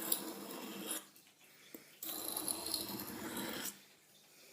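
Buck hunting knife blade drawn across a sharpening stone in two light-pressure strokes, the first about a second long and the second a longer stroke starting about two seconds in. The rasp of the steel on the stone is the sign of the edge coming up sharp.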